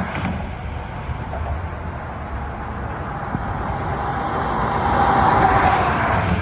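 Highway traffic running past on the bridge, a steady road noise that builds to a passing vehicle about five seconds in, its tyre whine dropping slightly in pitch as it goes by.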